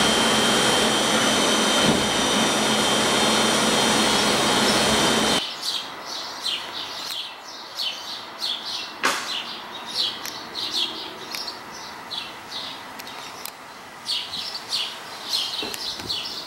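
Steady loud running noise with high whining tones inside an R44 subway car, cutting off suddenly about five seconds in. After that, birds chirp over and over against a much quieter outdoor background.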